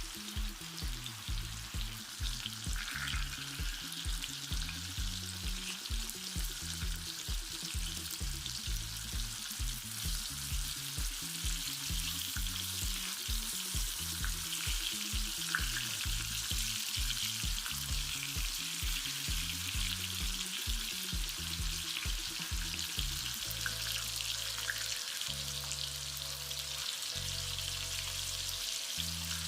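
Turkey breast pieces frying in hot coconut oil in a pan, a steady sizzle with a few light clicks of stirring. A quiet bass-line music track runs underneath.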